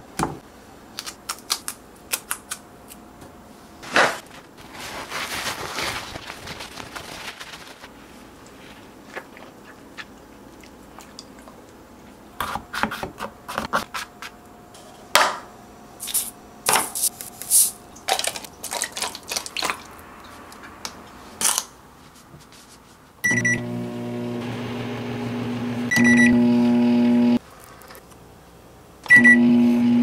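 Small kitchen handling sounds, taps, clicks and the scrape of a spoon scooping sugar into a paper cup. Then an SK magic microwave oven beeps and starts running with a steady hum. After a second beep the hum gets louder, it stops, and after a third beep it starts again.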